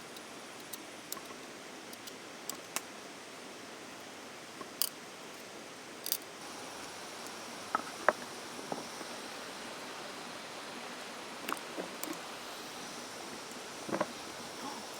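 A steady low hiss with irregular, sparse sharp clicks and snaps scattered through it, the sharpest about eight seconds in.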